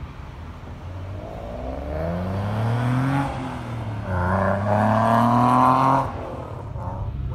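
Car engine accelerating, heard from inside the cabin: its pitch climbs, drops about three seconds in as it shifts up a gear, then climbs again and eases off about six seconds in.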